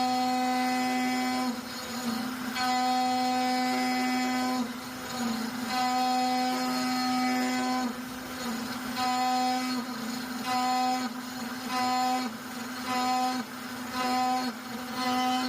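DIY PrintNC CNC router's axis drive motors whining as the machine moves, in a run of stop-start moves: a few long ones at first, then short, regular bursts about once a second.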